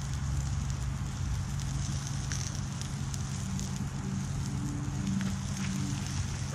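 Campfire burning under a cooking steak: a steady hiss with a few faint crackles, over a steady low hum.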